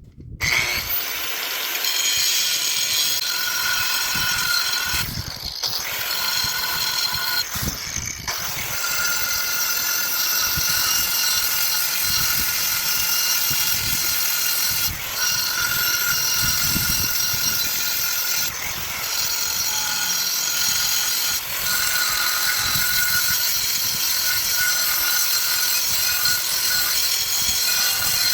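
A power tool cutting slowly through material, with a steady high whine that drops out briefly several times as the cut pauses.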